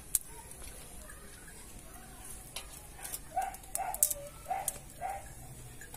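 An animal calling in short pitched notes, four in quick succession about halfway through, with sharp metallic taps and clicks of cooking tongs and pans in between.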